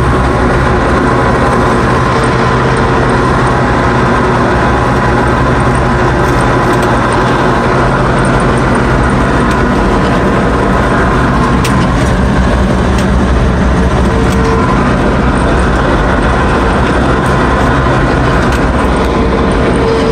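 Diesel engine of a Ransomes FrontLine 723D front mower running steadily, loud and even, with a steady whine over the engine.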